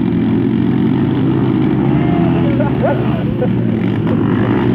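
Motocross bike engine running at a steady speed.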